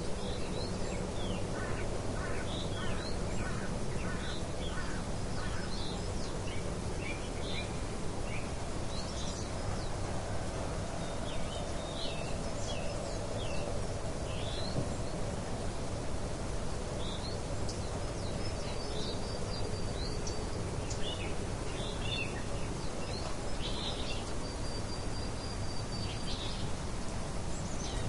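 Small songbirds chirping on and off, with a quick run of chirps near the start and a few brief held whistles later, over a steady hiss of light wind.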